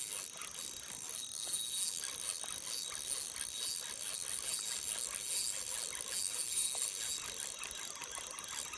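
Outdoor ambience: a steady high-pitched hiss with a faint steady tone in it, scattered with many light clicks.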